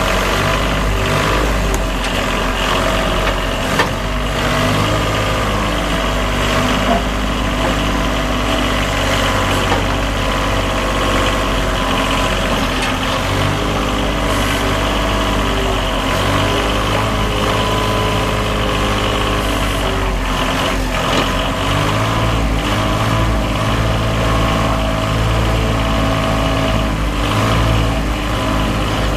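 Ford 4x4 backhoe loader's three-cylinder diesel engine idling steadily, its speed shifting slightly now and then.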